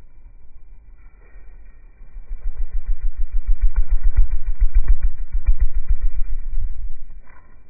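Male hummingbird's wingbeats slowed down by slow-motion recording into a low, rapid, even pulsing thrum. It swells about two seconds in as a bird flies close past the phone and fades about seven seconds in.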